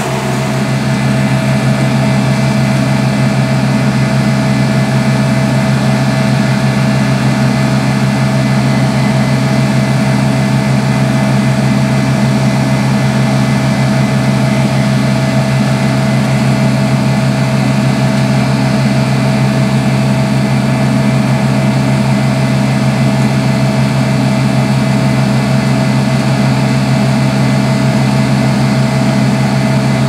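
New Holland CX6.80 combine harvester running steadily at working revs as it cuts wheat and unloads grain through its auger into a trailer alongside. A constant low hum with a steady whine above it.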